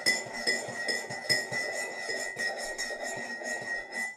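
Metal teaspoon stirring tea in a ceramic mug, clinking against the sides two or three times a second, each clink leaving the mug ringing, with liquid swishing underneath. It cuts off suddenly at the end.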